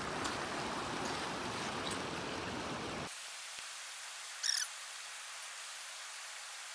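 Shallow creek water running steadily as a gold pan of pay dirt is swirled in it. About three seconds in the low rushing cuts off suddenly, leaving a thinner hiss, and a brief high chirp comes about a second and a half later.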